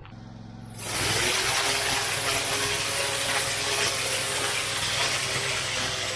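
Briggs and Stratton Poseidon pressure washer running, its engine a steady low hum. About a second in the turbo nozzle opens up with a loud, steady hiss of high-pressure water spraying onto block paving and weeds.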